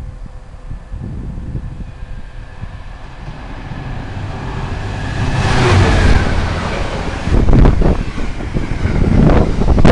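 A freight train runs through at speed: the locomotive's sound grows steadily louder and its tones drop in pitch as it passes, about six seconds in. Its container wagons then follow in a rapid clatter of wheels over the rail joints.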